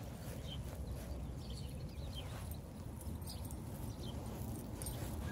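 Footsteps over a steady low rumble, with a few faint scattered ticks.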